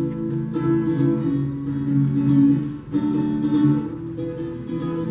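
Acoustic guitar strummed in chords, starting suddenly and playing the instrumental lead-in to a song, with a brief break just before the three-second mark.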